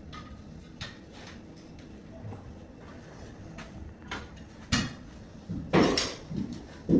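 Hard objects being handled: scattered light clicks, then a sharp knock a little past halfway and a louder clatter near the end.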